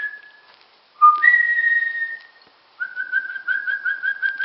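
A person whistling to call puppies: a short low note leaping to a higher held note for about a second, then a quick run of short repeated whistles, about five a second.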